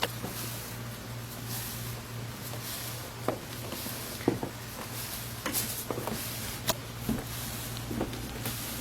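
Irregular soft knocks and footsteps, about eight over several seconds, over a steady low hum.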